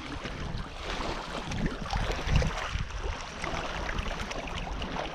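Shallow lake water sloshing and splashing around the legs of someone wading along the shore, with wind rumbling on the microphone in uneven gusts.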